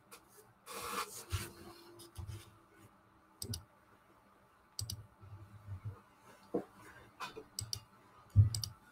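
Scattered sharp clicks, several in quick pairs, with a short rustle about a second in and soft knocks between them: small handling noises at a desk or table.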